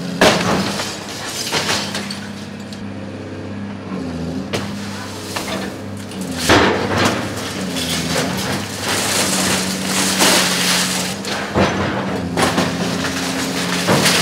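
Hydraulic excavator's diesel engine running, its note dipping now and then, as the bucket smashes through plate-glass windows and the building frame. Repeated crashes of breaking glass and building material, about eight of them.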